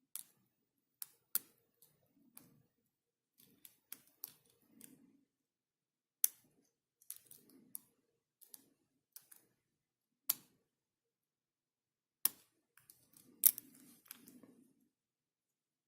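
Lock pick and tension wrench working the pin stack of a Society Brass pin-tumbler lock: small irregular metallic clicks and ticks with faint handling rustle, the sharpest click about three-quarters of the way through.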